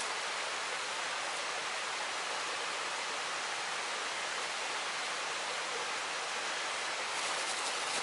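Steady rush of a waterfall. Near the end a plastic bag crinkles as it is handled.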